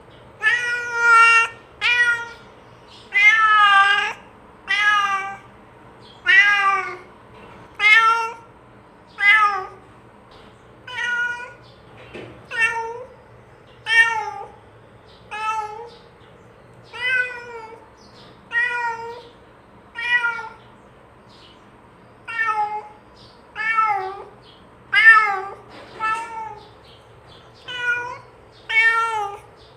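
A domestic cat meowing over and over, about one meow every second and a half, some calls longer and louder than others. The meows are a cat calling to a companion cat to come and eat.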